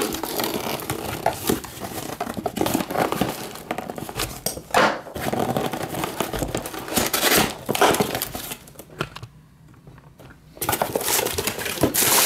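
A cardboard shipping box is being cut open with a knife and its flaps pulled apart, with scraping, tearing and cardboard rubbing. After a brief pause near the end, crumpled packing paper inside crinkles loudly.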